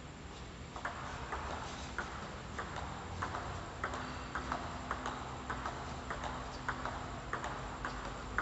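Table tennis rally: the celluloid/plastic ball clicking off the table and the rubber-faced paddles in a quick back-and-forth, about two hits a second.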